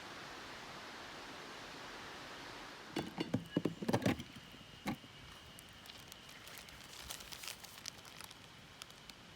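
Steady wind noise, then about three seconds in a quick run of clicks, knocks and rustling as something is handled, with one more knock a second later and light ticking after it.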